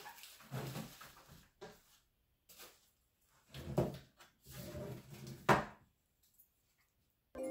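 Irregular soft knocks and rustles of household handling in a small room, with the sharpest knock about five and a half seconds in.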